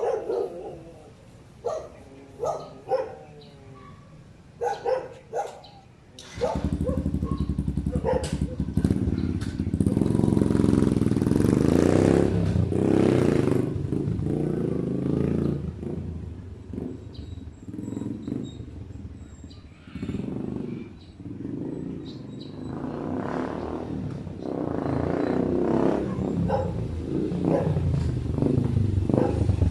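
A dog barks in short bursts. About six seconds in, a Yamaha YTX125's single-cylinder four-stroke engine comes in suddenly through an aftermarket bullet pipe exhaust and runs with the revs rising and falling as the bike is ridden, loud again near the end.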